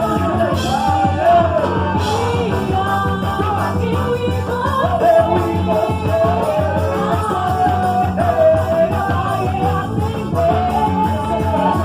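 Upbeat quadrilha (festa junina) music with singing over a steady beat.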